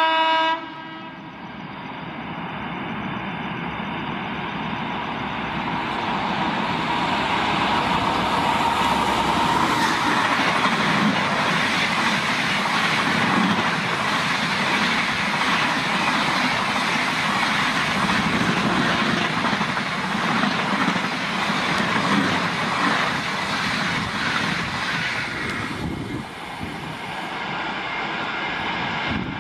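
Indian Railways express train of LHB coaches passing through a station at speed. A horn blast cuts off about half a second in. Then the rush of wheels and air builds as the train nears and stays loud for about 25 seconds as the coaches go by, dropping off shortly before the end.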